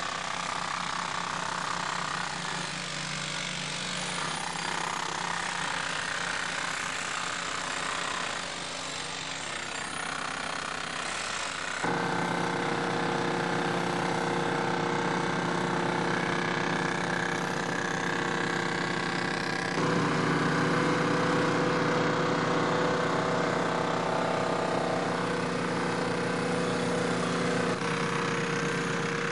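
Small engine and power tool running steadily, with a fast rattle in the first part; the engine note jumps abruptly to a new steady pitch about twelve seconds in and again about twenty seconds in.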